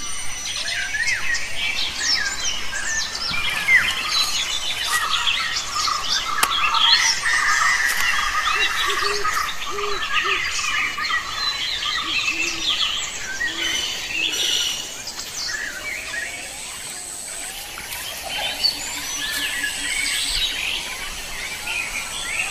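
A busy chorus of many birds chirping and calling at once: a dense, overlapping stream of short, quick whistled notes.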